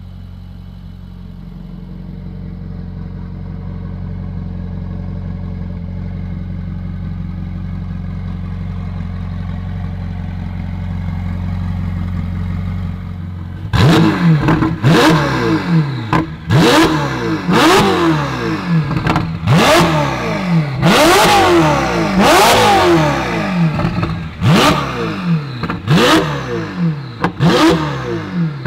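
Ferrari 488 GTB twin-turbo V8 through a custom titanium exhaust, idling steadily. About 13 seconds in it is revved in repeated sharp throttle blips, roughly one a second, each a quick rise and fall in pitch, much louder than the idle, with a few held a little longer.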